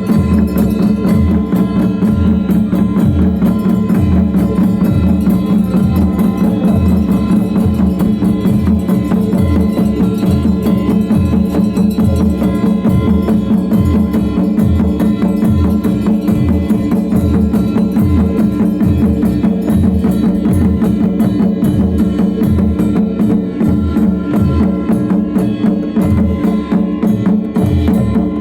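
Music with a steady drum beat, about two strokes a second, over a held drone.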